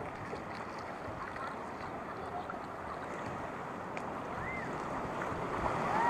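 Rushing river water churning past a wooden river boat's hull, a steady rush that grows louder near the end as the boat enters rapids.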